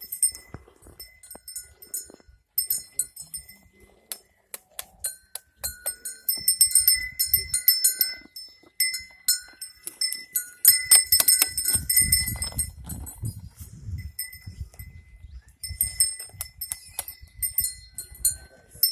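Small bells jingling in irregular clusters of strikes, busiest around the middle, with a low rumble for a few seconds past the middle.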